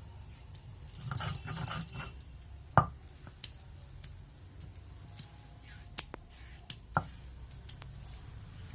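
Fresh ginger being ground to a paste by hand on a stone slab with a grinding stone: rough scraping strokes about a second in, and sharp knocks of stone on stone near three and seven seconds in.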